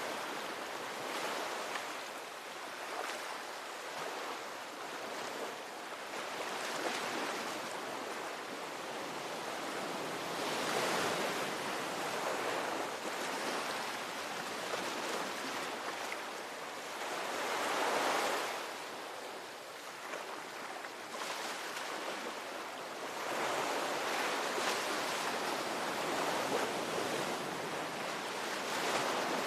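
Ocean waves breaking and washing on the shore, a continuous rushing surf that swells and ebbs every few seconds, with bigger waves about a third of the way in, past the middle and near the end.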